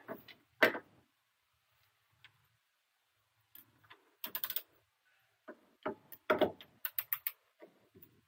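Metal hand tools clinking and clicking in short irregular bursts, sockets and a wrench being handled and fitted, metal on metal.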